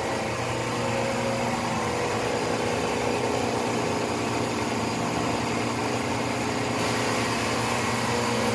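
Enerpac hydraulic pump driving a tire press, running with a steady hum. It is much quieter than a gas-powered pump.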